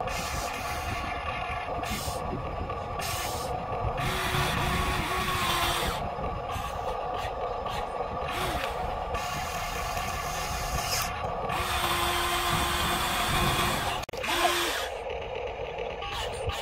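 RC model excavator's electric motors and gearboxes whirring as the boom, arm and bucket move, starting and stopping in short runs about once a second. It is played sped up, which raises the pitch.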